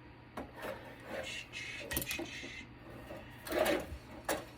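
Scattered light clicks and metal clinks of tools and parts being worked on a network switch's metal chassis, with a louder clatter about three and a half seconds in.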